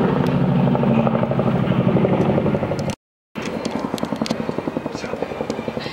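Boeing CH-47 Chinook tandem-rotor helicopter passing low overhead, its rotors beating in a rapid, even chop. The sound drops out for a split second about halfway through, then resumes a little quieter.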